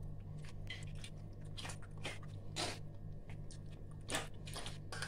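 Soaked tamarind pulp being squeezed and mashed by hand in a steel mesh strainer: irregular soft wet squelches and clicks, over a faint steady low hum.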